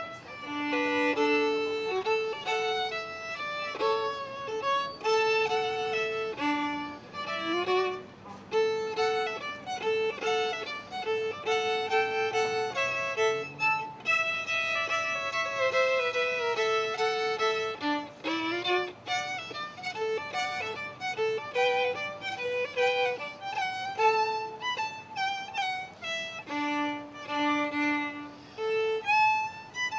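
Solo violin played with a bow: a fiddle tune with slides between notes and a lower note that keeps returning under the melody.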